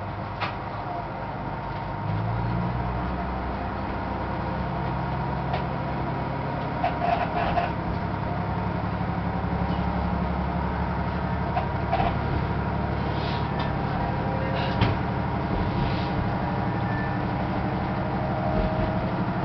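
Electric train starting off and gathering speed, heard from the cab: a steady running noise of motors and wheels that grows louder about two seconds in, with a few sharp clacks as the wheels pass over rail joints and points.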